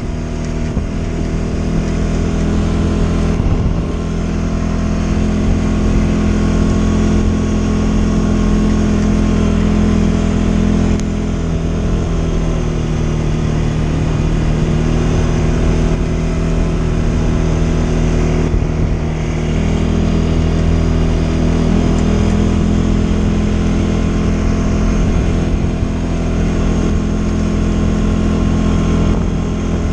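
CFMoto CF550 ATV's single-cylinder engine running steadily under way, heard from the rider's seat, with a few brief dips in the engine note as the throttle eases.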